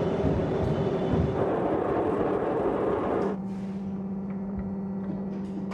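Cylinder boring machine running: a rough, noisy machine whir with a steady tone that, about three seconds in, gives way to a quieter, steady electric hum.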